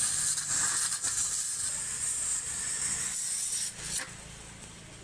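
Gas cutting torch hissing steadily as its flame cuts through the rusted sheet-metal outer cover of a scooter silencer. The hiss drops away about four seconds in.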